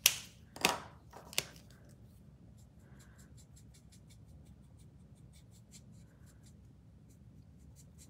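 A few sharp clicks in the first second and a half as an alcohol marker is picked up and uncapped, then the light, rapid scratching of its nib colouring on cardstock.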